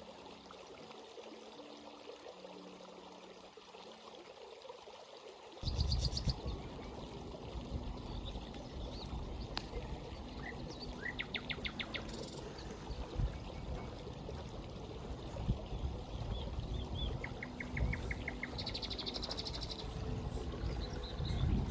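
Forest stream flowing and babbling over rocks, with birds singing short rapid trills over it several times. About six seconds in the water sound turns suddenly louder and fuller, with a low rumble.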